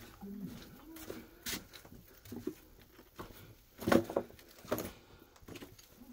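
Footsteps scuffing and crunching over loose broken bricks and dirt inside a brick tunnel: a handful of irregular knocks and scrapes, the loudest about four seconds in.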